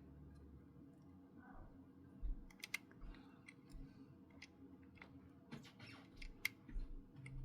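Scattered light clicks and taps of hands handling small plastic toy parts and the speaker during hot-glue work, over a faint steady hum.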